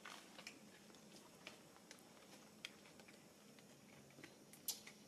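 Near silence with a scattering of faint, short clicks and ticks, the sharpest about four and a half seconds in.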